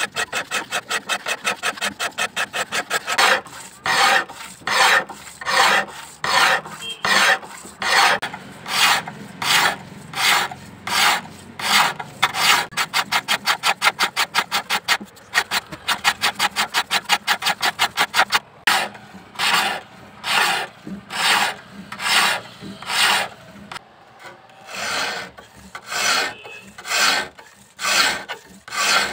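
Hand file rasping along the bevel of a steel knife blade in repeated push strokes. Short quick strokes come in the first few seconds and again around the middle, with slower, longer strokes of about two a second in between and toward the end.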